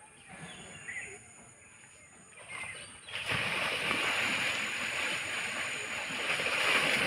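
Bulls fighting in shallow floodwater: a loud, continuous splashing and sloshing of water as they push and charge through it, starting suddenly about three seconds in after a quieter stretch with a few faint bird chirps.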